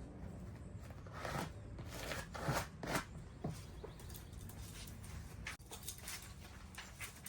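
Handling noise from wrapping a sheet-metal supply plenum in duct insulation: irregular rustling and crinkling with a few short, sharper scrapes about two to three seconds in.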